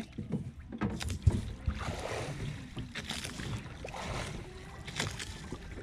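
Sea water washing and splashing against a small fishing boat in a few swells, with irregular knocks and bumps on the hull and low rumble.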